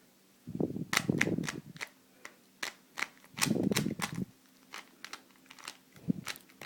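Plastic Rubik's cube being twisted quickly by hand: a string of sharp clicks and clacks as the layers snap round, with duller knocks of the cube being handled in two spells.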